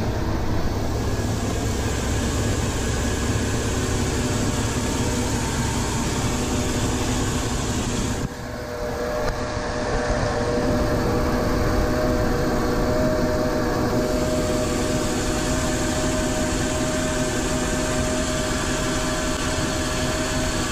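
Mercruiser 5.7-litre small-block V8 marine engine running steadily, its newly fitted circulating water pump being run and checked for leaks. There is a brief dip in the sound about eight seconds in.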